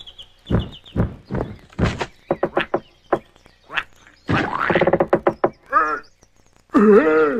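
Cartoon sound effects: a quick run of knocks and thumps, then a character's pitched, wavering cries and squawks.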